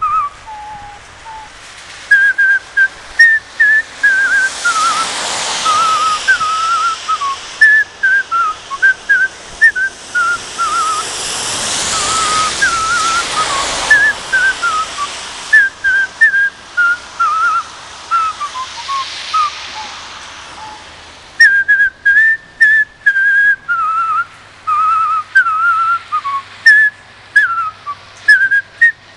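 A man whistling a tune through pursed lips, a melody of short notes that skip up and down. A rushing hiss swells and fades behind it three times.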